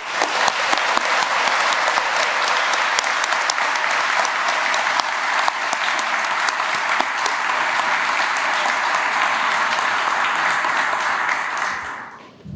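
Audience applauding steadily, dense clapping from many hands that dies away near the end.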